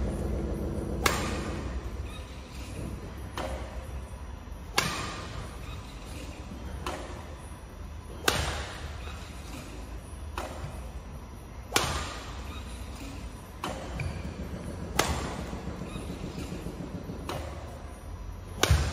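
Badminton racket smashing shuttlecocks: a sharp crack about every three and a half seconds, six in all, each with a fainter click about a second and a half before it.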